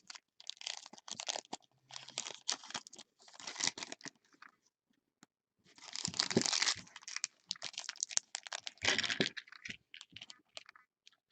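Trading-card pack wrappers being torn open and crinkled, with card stock rustling and small clicks, in several irregular bursts of tearing and rustling.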